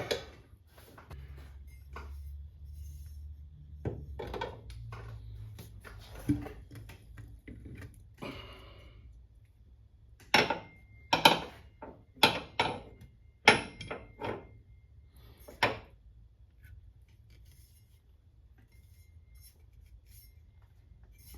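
Metal parts of a car's rear shock absorber clinking and clanking as the shock is worked out and handled, with a run of about seven sharp metallic knocks around the middle.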